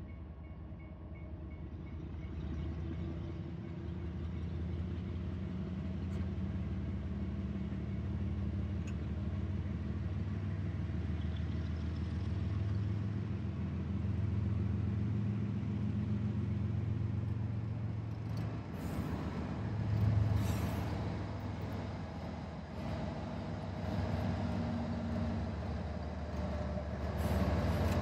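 CSX ES40DC diesel-electric locomotive's GE GEVO-12 engine running as it approaches at slow speed: a steady low drone that grows louder, loudest near the end as it draws close.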